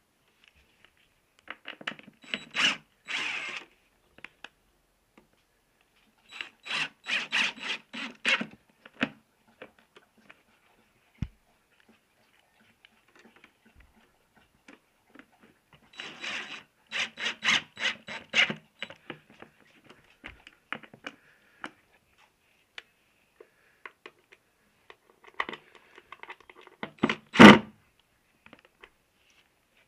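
Cordless DeWalt driver driving 20mm Pozidriv screws to fix a PVC air vent, in four short bursts, each a quick run of clicks. The last burst is the loudest.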